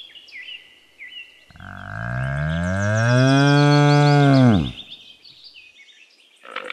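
Bull bellowing: one long, low moo of about three seconds that swells in pitch as it starts and drops off at the end.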